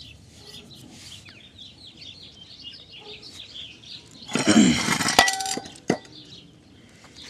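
Disassembled Briggs & Stratton engine block being shifted and turned over on concrete: a scraping shuffle about four seconds in, then a sharp ringing metal clang and a second short knock.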